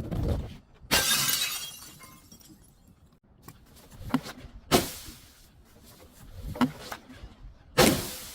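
Glass shattering and crunching as it is crushed: a long crash about a second in, then several sharper separate breaks through the rest, the last one near the end.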